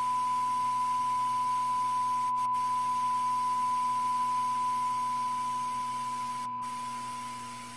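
Steady electronic test tone: one pure, unchanging pitch like a long beep, growing slightly quieter toward the end.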